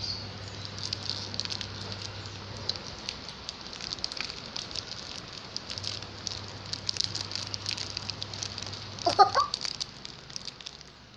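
Close crinkling and crackling of a plastic bag being handled, many small ticks in a row. About nine seconds in, a young child gives a short high squeal, the loudest sound.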